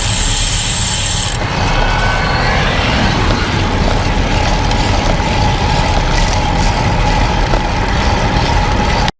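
Steady rush of wind on the microphone with tyre and road noise from a road bike riding on a gusty day. It cuts off abruptly at the very end.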